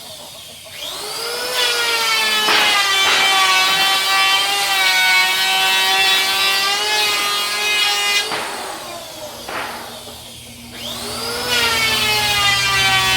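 Electric power saw cutting wood. The motor whine rises as it spins up about a second in and runs steadily through the cut, then winds down around eight seconds in. It starts up again near the end.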